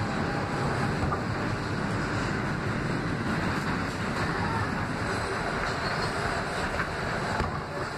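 R160 subway train running through the tunnel, a steady rumble of wheels on rail heard from inside the car.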